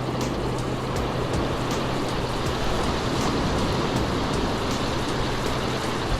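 Ocean surf washing on the beach: a steady rushing noise with no pauses, under a faint low hum.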